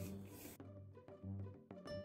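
Quiet background music: plucked and bowed string notes over a low bass note that repeats in an even rhythm.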